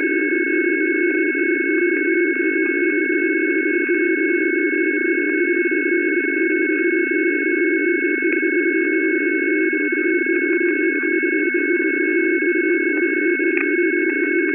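Shortwave radio receiver giving out a steady, unchanging signal: a low rushing drone with several high steady tones held above it, the sound narrow and thin like a radio's audio.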